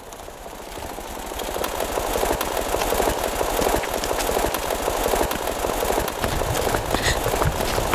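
Horror-film sound effect: a rapid, machine-like fluttering clatter that swells steadily louder over the first two or three seconds, then holds.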